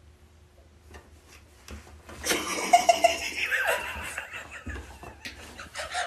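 A person breaks into loud laughter about two seconds in and keeps laughing in gasping bursts.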